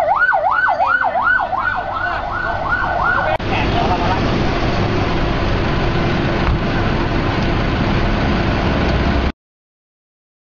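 Emergency vehicle siren in a fast yelp, rising and falling about four times a second, cut off abruptly about three and a half seconds in. A steady rushing noise follows, which stops suddenly near the end.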